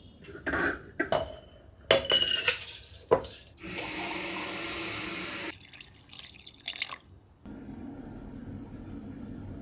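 Tap water running into a glass pitcher for about two seconds, after a series of clinks and knocks from glassware being handled. A few light clicks follow, then a quieter steady hiss near the end.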